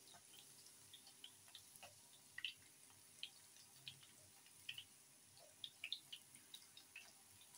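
Faint, sparse pops and crackles of hot oil around breaded potato skewers shallow-frying in a pan, a few scattered ticks each second.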